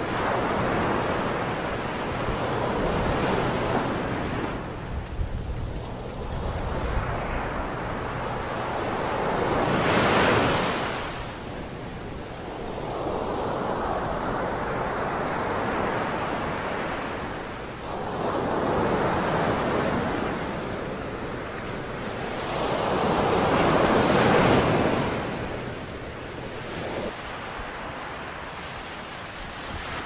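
Waves breaking and washing up the beach in surges that swell and fade every several seconds, two of them louder than the rest. Wind buffets the microphone.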